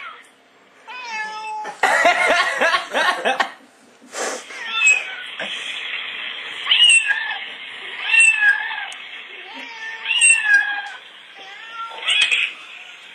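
Cat meows played from a YouTube meowing video through computer speakers: a loud tangle of several meows about two seconds in, then single drawn-out meows every second and a half to two seconds.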